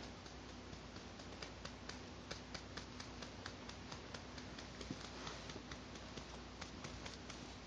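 A hand patting a newborn baby's back to bring up a burp: faint, light pats, several a second in an uneven rhythm.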